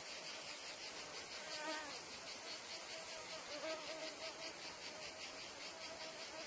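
Meadow insect chorus: a steady, high, rapidly pulsing chirring of cicadas and other field insects. Over it a fly buzzes close by, its drone wavering in pitch, strongest about two seconds in and again from the middle on.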